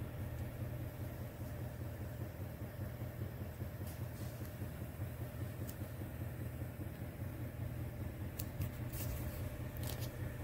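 Duramax 6.6-litre turbo-diesel V8 idling steadily, a low hum heard from inside the cab, with a few faint clicks near the end.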